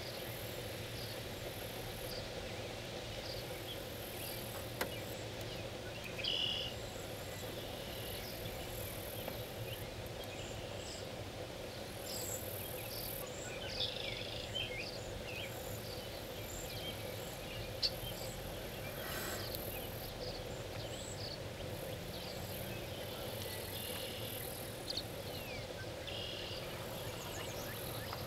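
Marsh ambience of insects trilling high and steadily in waves, with scattered short bird chirps and a steady low hum underneath.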